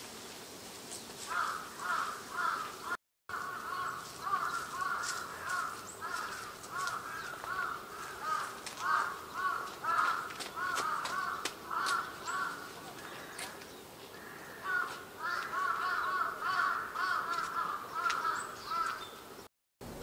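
A long, rapid run of short, harsh bird calls, several a second, with thin high chirps over them. The sound drops out briefly twice.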